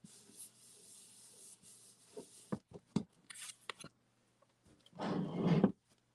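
Hands rubbing glued cardstock layers to press them together, a soft steady rub for the first couple of seconds. Light taps and clicks of the paper follow, with a short louder rustle about five seconds in.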